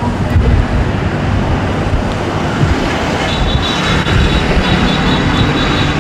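Steady, loud rumble of passing road traffic, with a faint high steady tone joining about halfway through.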